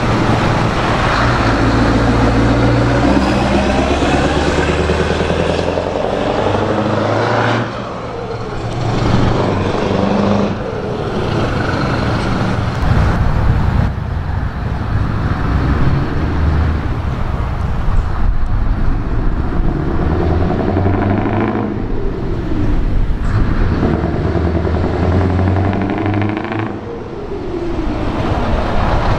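Scania 164 580 V8 truck engine on open pipes, pulling away and passing under heavy throttle. The revs rise and fall several times as it works up through the gears, with a few sudden drops in level.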